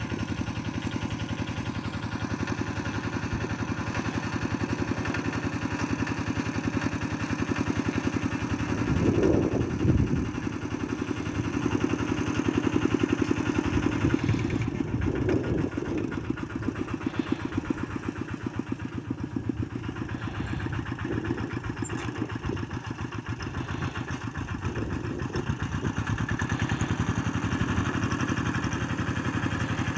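Small tractor's engine running steadily under load while ploughing, getting louder about nine seconds in and again from about twelve to fifteen seconds.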